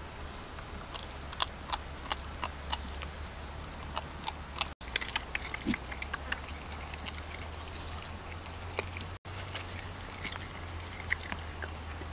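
Dogs chewing and eating cooked cow ear: irregular crisp clicks and crunches of their chewing, thickest in the first few seconds and sparser after, over a steady low hum.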